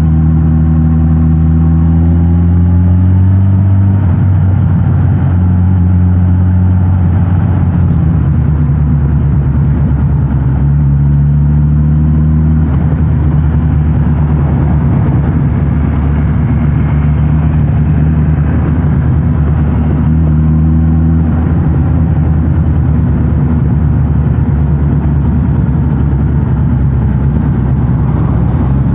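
Suzuki GSX-S1000 GT's inline-four engine through its stock exhaust, revs rising under acceleration in the first few seconds, then holding steady. The pitch climbs again several more times as the bike accelerates, settling back to steady running between.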